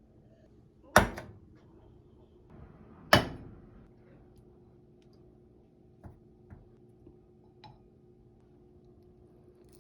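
Two sharp knocks of hard objects striking each other, about two seconds apart, each with a short ringing tail, followed by a few faint clicks.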